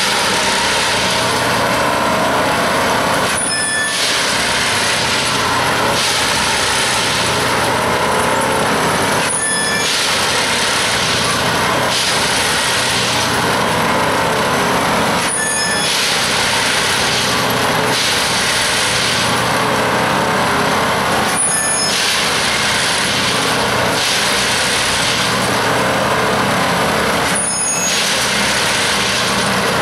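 Plasser & Theurer 08-32 C track tamping machine at work: loud, steady machinery noise of its engine and tamping unit, briefly dipping about every six seconds in a regular work cycle.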